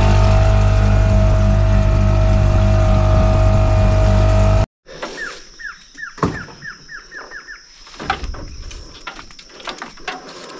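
Boat's outboard motor running steadily, cutting off suddenly about four and a half seconds in. Then a bird calls a quick run of about eight falling notes, with scattered light knocks and clicks.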